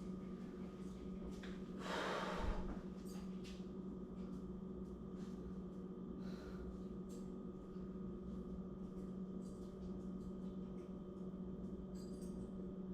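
A person's single sharp exhale through the nose about two seconds in, over a steady low hum and a few faint clicks.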